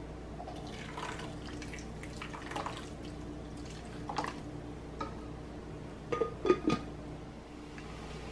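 Scattered soft clinks and scrapes of kitchen utensils and containers during sauce preparation, with a cluster of louder knocks about six seconds in, over a steady low hum.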